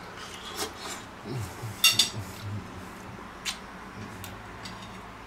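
Metal fork clinking and scraping against a ceramic dinner plate while eating, about three sharp clinks, the loudest ringing briefly about two seconds in.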